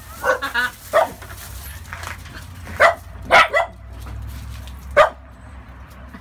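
Puppies barking and yipping in play: a string of short, sharp barks at uneven intervals.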